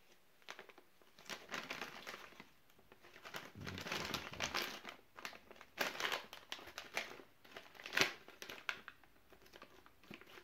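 Foil-laminate MRE pouch of cheddar cheese pretzels crinkling as it is handled and torn open, in irregular crackles, the loudest a sharp one near the end.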